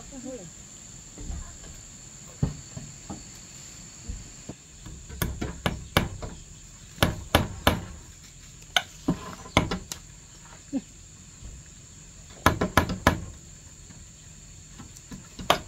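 Hammer striking wooden poles in short irregular runs of a few sharp blows, with pauses between them. A steady high insect trill runs underneath.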